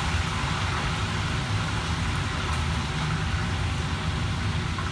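Steady rushing noise of a commercial kitchen's wok station: gas wok burners and the extraction hood fan running together, a low rumble under an even hiss.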